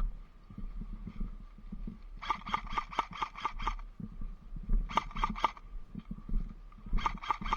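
Airsoft replica rifle firing in three rapid bursts of evenly spaced shots, about six a second: the first about two seconds in, a short one about five seconds in, and another starting near the end.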